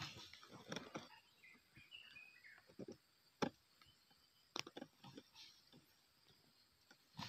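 Faint, sparse rustles and sharp clicks in dry leaf litter from a red junglefowl moving through the undergrowth, with one louder click a little past three seconds in. A brief high bird chirp sounds around two seconds.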